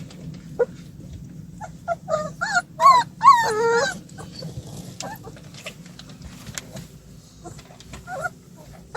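Puppies whining and yelping: a flurry of high, wavering cries between about two and four seconds in, with scattered short yips before and after.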